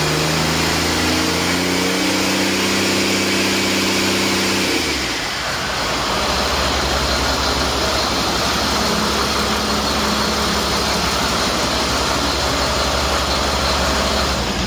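2008 Caterpillar C7 inline-six diesel engine running at raised speed, then dropping back to a steady idle about five seconds in.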